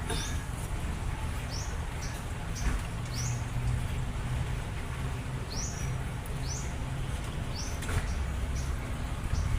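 Toyota 2E engine running with a steady low rumble, while short high bird chirps repeat irregularly, about once a second. No clear regular knock stands out.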